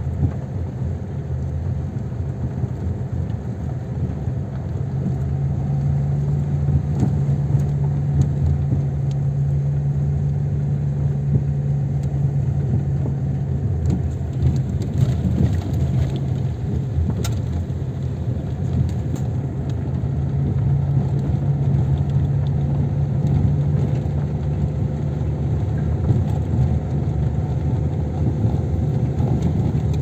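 Car engine and road noise heard from inside the moving car: a steady low hum that grows louder about five seconds in, eases off around thirteen seconds, and grows again from about twenty seconds.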